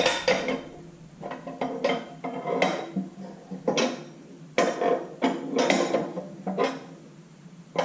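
Metal engine parts being handled on a workbench: irregular clinks and knocks of metal on metal, several of them ringing briefly.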